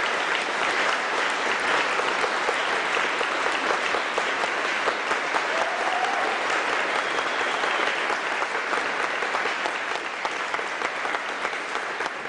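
A large audience applauding: many hands clapping steadily, thinning slightly toward the end.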